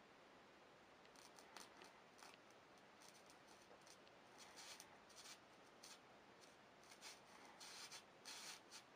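Faint crackling hiss in short, irregular bursts that grow denser near the end: a steel spring sizzling and sparking where a high-power blue laser beam burns into it.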